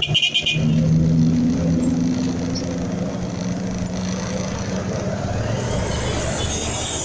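Road traffic heard from a motorcycle at a near standstill in a jam: engines running close by, with a steady engine hum for the first few seconds.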